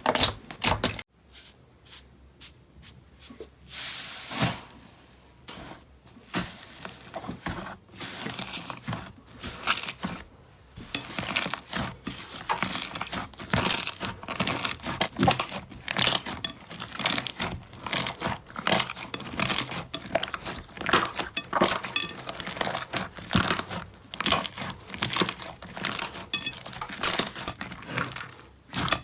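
Slime being squished and pressed by hand, giving crackles and pops that come sparsely at first and then in a dense, continuous run from about ten seconds in.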